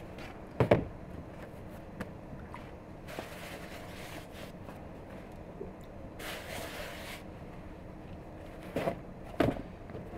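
Freshly baked flatbreads handled and set down on a wooden board: soft rustling brushes and a few dull thuds, one about a second in and two close together near the end.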